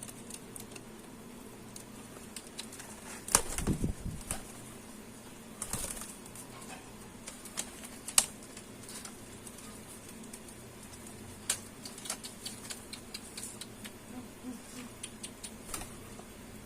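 Domestic pigeons scuffling and flapping their wings in short bursts, the loudest about three seconds in, with scattered light clicks and taps in between.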